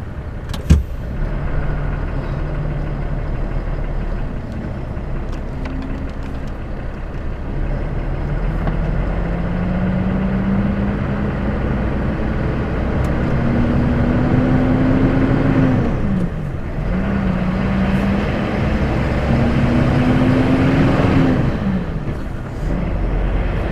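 Heavy goods lorry's diesel engine pulling away and accelerating, its note climbing and then dropping sharply at two gear changes, one a little past the middle and one near the end. A sharp click comes about a second in.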